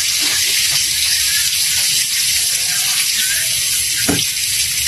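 Margarine melting and sizzling in a wok of hot oil left from frying fish: a steady, even hiss.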